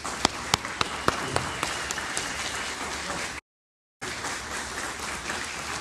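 Audience applauding, with a few sharp single claps standing out in the first second or so. The sound cuts out completely for about half a second just past the middle, then the applause carries on.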